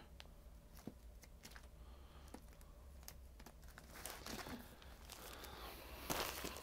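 Vinyl LP records being pulled from a stack and handled: a faint crinkling rustle of sleeves with scattered soft clicks and taps, a little busier about four seconds in and again near the end.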